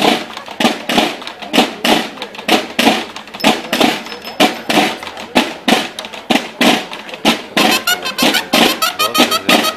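Loud recorded music with a fast, steady, drum-driven beat. About seven and a half seconds in it switches to a new section with quicker beats and a melody line.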